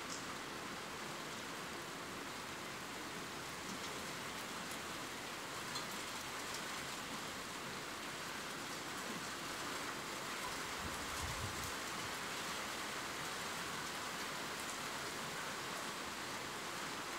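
Steady rain falling: an even hiss with occasional light drop ticks.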